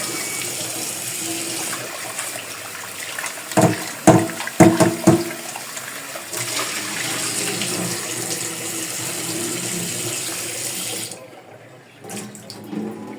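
Tap water running into a pot of raw chicken being washed, with a few loud clunks about four seconds in; the water cuts off near the end.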